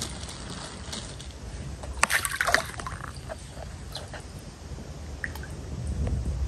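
Handful of fish-feed pellets scattered onto pond water about two seconds in, a brief pattering splash. After it come a few small scattered plops and the slosh of the water.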